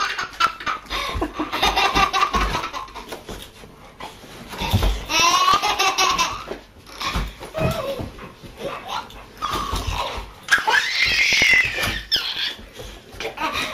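A baby laughing hard in high-pitched, breathy bursts, three main fits of laughter with short pauses between.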